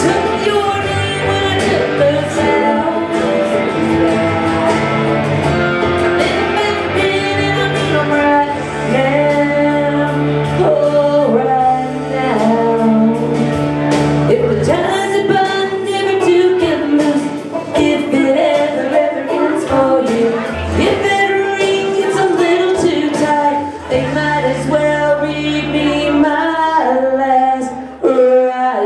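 A woman singing into a microphone over a backing track with a bass line and a steady drum beat.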